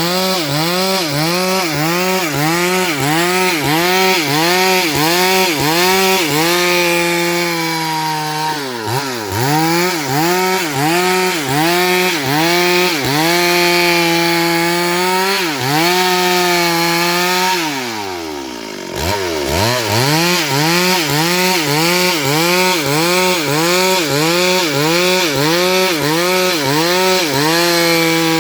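Stihl MS 382 two-stroke chainsaw engine revved over and over, the throttle blipped about one and a half times a second, with a few longer holds at high revs. About two-thirds through the revs fall away to idle, then the blipping starts again.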